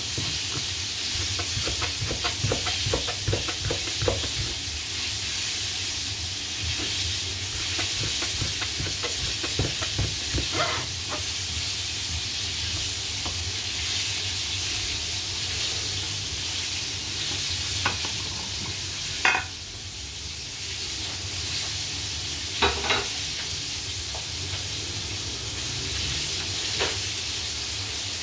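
Chef's knife tapping against a plastic cutting board as lemon peel is cut into thin strips: a quick, uneven run of taps for about the first ten seconds, then a few single knocks later on. Under it, a steady hiss and low hum.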